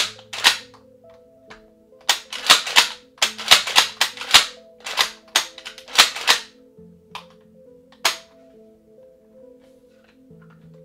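Metal parts of a Mossberg 590 pump shotgun clicking and clacking as the barrel is slid back onto the receiver and seated: a quick series of sharp clacks over the first six seconds, then one more about eight seconds in.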